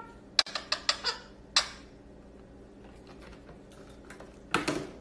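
Plastic water bottle clicking and crackling as a green parakeet pushes and bites it against a glass tabletop. There is a quick run of sharp clicks in the first second and a half, then a louder short clatter near the end.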